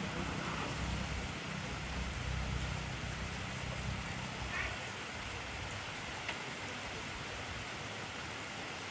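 Steady, intense rainfall: an even hiss with a few faint drop ticks. A low rumble underneath fades out about halfway through.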